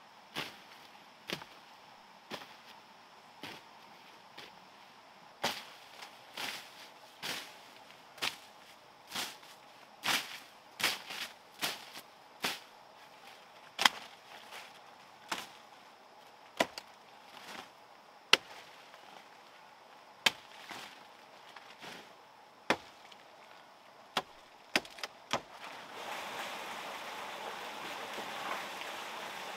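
Machete chopping through weeds and brush: a series of sharp strikes about one a second, coming faster in a flurry in the middle. Near the end the chopping gives way to the steady rush of running water.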